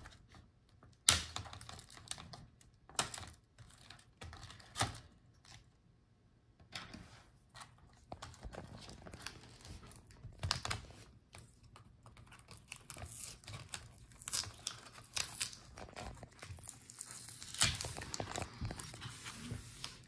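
Scattered clicks, taps and knocks of fingers and plastic pry tools on the plastic and metal parts of a Lenovo IdeaPad Flex 5 laptop as its motherboard is worked free of the chassis, with light crinkling and scratching between them. The loudest knock comes about a second in.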